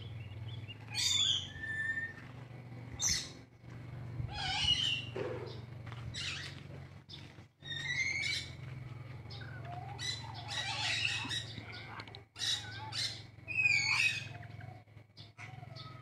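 Small parrots chirping and squawking in short, irregular calls, some with quick rising and falling whistles, over a steady low hum.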